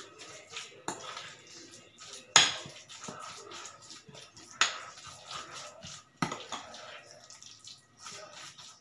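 A metal utensil stirring a thick, wet mashed tofu and vegetable batter in a glass bowl, with soft squelching and scraping and sharp clinks against the glass every second or two, the loudest about two and a half seconds in.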